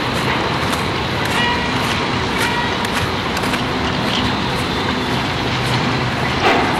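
Steady rumble of distant city traffic, with a few faint high chirps a little over a second in and a short sharp click near the end.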